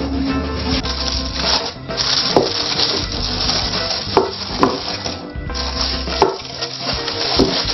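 Aluminium foil crinkling and rustling as it is handled around a baking dish, with a few sharp clicks. Background music plays underneath.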